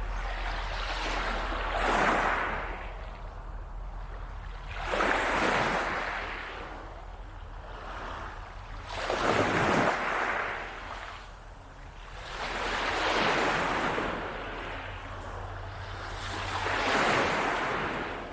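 Waves breaking and washing up a beach, swelling and fading in five surges about four seconds apart.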